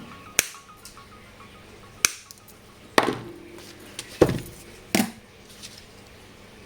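Five sharp knocks and clicks of hard objects being handled and set down on a work surface, a couple with a short woody ring, over quiet background music.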